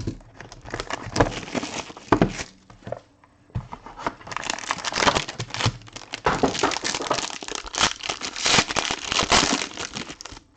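Plastic wrapping on a trading-card box being crinkled and torn open in irregular crackling bursts, with a short pause about three seconds in.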